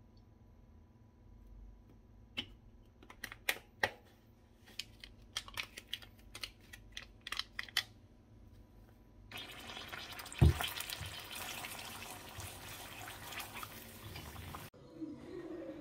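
Light clinks and taps of a spoon stirring in a ceramic mug, then a steady sizzle of eggs frying in a nonstick pan, with one loud knock just after the sizzle starts.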